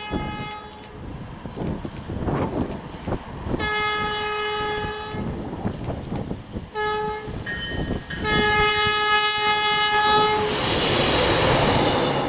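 Diesel locomotive air horn sounding four blasts: short, long, short, then a longer last blast. After it, the rumble of the locomotive and its wheels rises loudly as it approaches.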